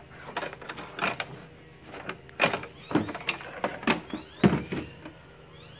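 Knocks and clatter of a Hypertherm Powermax 45 plasma cutter's metal case being tipped over and turned by hand, a string of sharp knocks with the loudest about four and a half seconds in.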